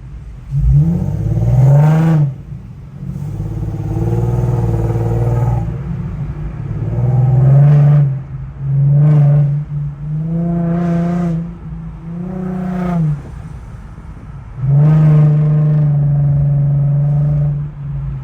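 Infiniti Q50's 3.7-litre V6, fitted with test pipes in place of the catalytic converters, revved in about seven throttle blips. Each rev rises and falls in pitch, the longer ones held for a second or more, the last and longest near the end.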